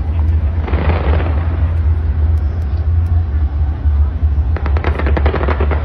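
Fireworks going off: a dense burst about a second in, then a run of rapid crackling cracks near the end, over a steady low rumble.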